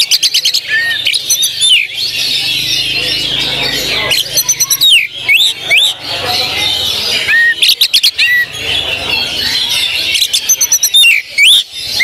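Oriental magpie-robin (kacer) singing loud, fast 'tembakan' bursts: five stuttering trains of sharp repeated notes, each under a second, with rising whistled notes between them. A dense chatter of other songbirds runs underneath.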